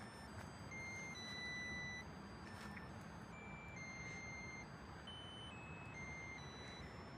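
Faint electronic beeper melody: thin single notes, each held under a second, stepping up and down in pitch like a cheap tune chip from a musical birthday candle or card.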